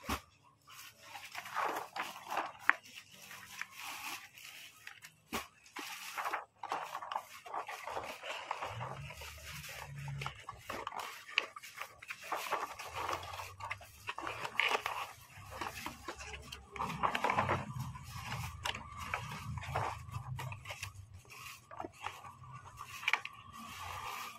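Cardboard being handled and folded by hand: irregular scraping, rustling and crackling as the sheet is slid, bent and creased, with short sharp clicks throughout.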